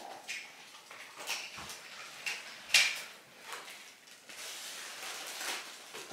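Several light knocks, clicks and rustles of things being handled in a kitchen, spaced irregularly about a second apart, like drawers or doors being opened and closed.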